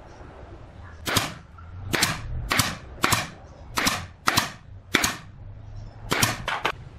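Nail gun firing about ten times into pine, fixing a trim block to a bed footboard. The shots come sharp and at uneven intervals, the last three in quick succession near the end.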